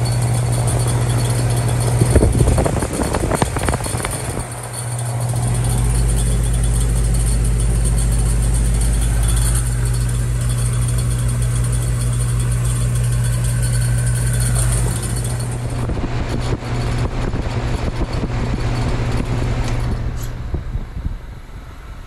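Goodman GSZ13 heat pump outdoor unit running in heat mode: a steady compressor hum with the condenser fan's rush. A brief scuffing noise comes about two seconds in. The hum weakens partway through, and near the end the unit shuts down and the sound falls away.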